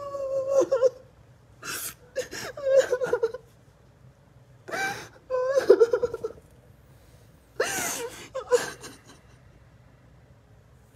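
A woman sobbing in four bouts, each a sharp gasping in-breath followed by a wavering, high crying wail.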